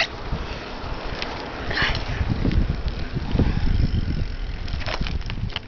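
Bicycle being ridden, with a low, uneven rumble that grows from about two seconds in and scattered clicks and knocks.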